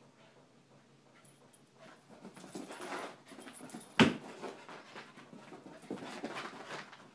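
Two dogs, a puppy and a chihuahua, at rough play: whimpering and panting start about two seconds in. A single sharp thump about four seconds in is the loudest sound.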